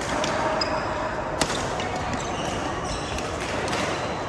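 A badminton racket strikes a shuttlecock once, a sharp crack about a second and a half in. Behind it is the steady background noise of the hall and a few short, high squeaks.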